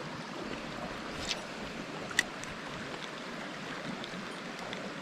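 Mountain stream rushing over rocks: a steady even wash of running water. A short faint click comes about two seconds in.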